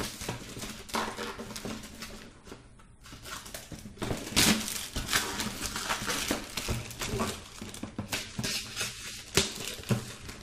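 Black plastic parcel wrapping crinkling and rustling as the taped parcel is lifted, turned and opened by hand, in irregular sharp crackles that grow louder about four seconds in.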